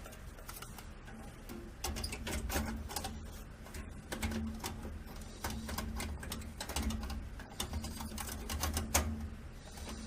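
Irregular clicks, knocks and low thumps of a computer case and a card reader being handled, as the card reader is shifted into position in its front drive bay.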